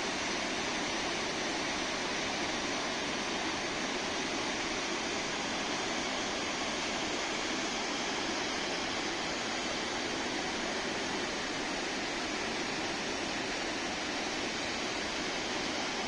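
Steady rush of the Aharbal waterfall: the Vishav river pouring over rock ledges into a pool, a constant full-bodied water noise with no change in level.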